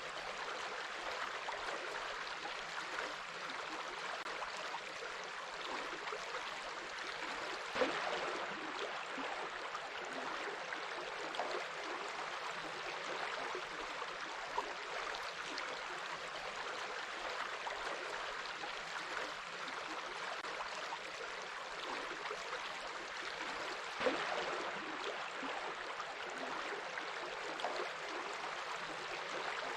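A small stream running steadily, an even splashing hiss of water with a brief louder splash about a third of the way in and another near the end.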